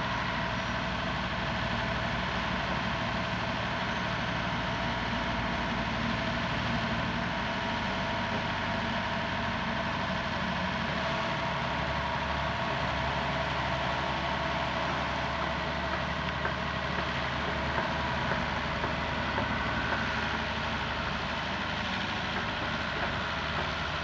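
Hy-Mac 610 wheeled excavator's diesel engine running steadily, with a few light knocks about three-quarters of the way through.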